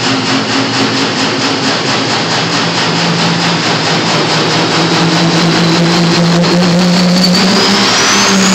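Dodge Cummins diesel pickup engine running hard under load while pulling the sled, steady and loud, its pitch climbing slightly, with a high whine rising near the end. It is running on a lot of fuel and not enough boost, throwing black smoke.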